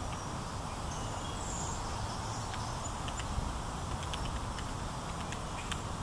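Steady low outdoor rumble, with faint short high bird chirps and scattered small ticks over it.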